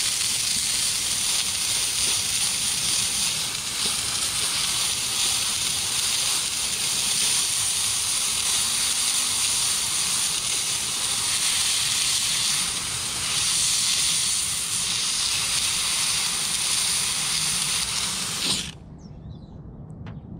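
McCulloch handheld steam cleaner jetting steam from its nozzle in a loud, steady hiss onto vinyl lettering to loosen it; the hiss cuts off suddenly near the end.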